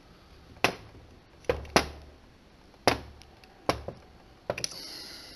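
Steel forceps clicking against the metal automatic tension of a Willcox & Gibbs sewing machine while working at its stiff twist lock: six sharp metallic clicks, irregularly spaced.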